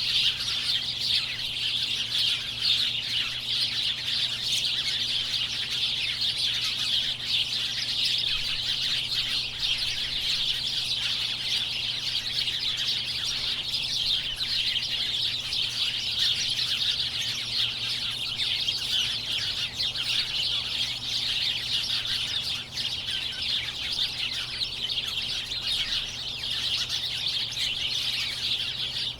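A large flock of birds chirping together: a dense, continuous chatter of many overlapping calls that never lets up.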